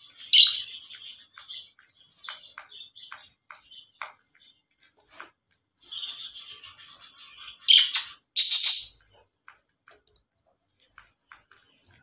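A flock of budgerigars chirping and warbling, with many short sharp chirps. A dense stretch of chatter about six seconds in builds to loud calls around eight seconds, then only scattered chirps follow.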